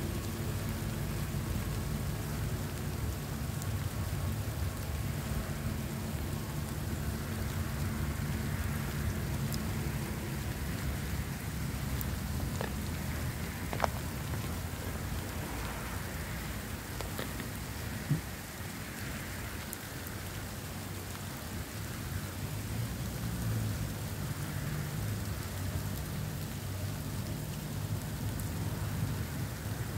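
Steady rain falling, heard as an even hiss and patter. A low steady hum fades out about a third of the way in, and two sharp taps sound near the middle.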